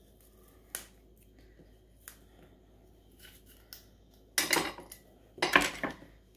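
A stainless steel apple wedger and apple pieces being handled on a plastic cutting board: a few light clicks, then two louder short clatters near the end as the wedger is worked and set down.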